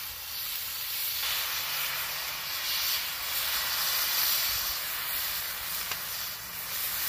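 Steaks sizzling steadily in hot olive oil in a cast iron skillet over a wood fire.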